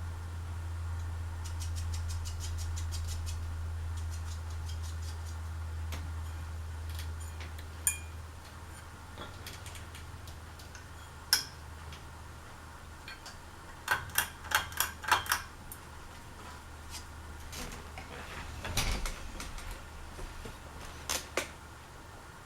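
Hunter Beacon Hill ceiling fan's motor humming low and steady, the hum fading away about eight seconds in. Scattered sharp clicks and small rattles come throughout, with a quick cluster about two-thirds of the way through.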